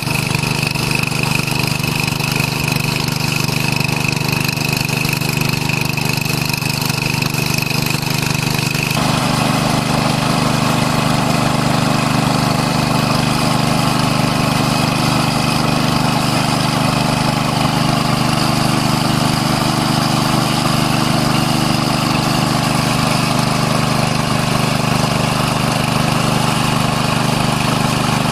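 Small petrol-engine portable water pump running steadily, drawing water out of a ditch through its hose. The engine note changes character about nine seconds in.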